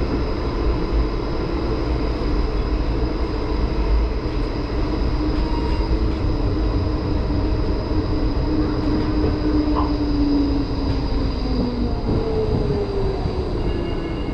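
HermeLijn tram running along street track, heard from inside the cab: a steady rumble of wheels on rail with a faint high steady whine. In the second half, a low motor whine slowly glides down in pitch, then a second one follows near the end.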